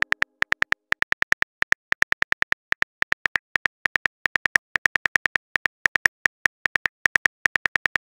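Rapid, slightly uneven phone keyboard tap clicks, about seven a second, as a text message is typed out letter by letter.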